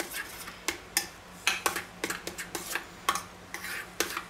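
A spoon stirring thick tomato sauce in a small stainless steel bowl, clinking and scraping against the metal sides at an irregular pace.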